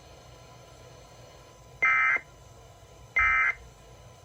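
Weather alert radio receiver beeping its alert: two short, identical electronic beeps about a second and a half apart. The receiver has been activated by the NOAA Weather Radio weekly test.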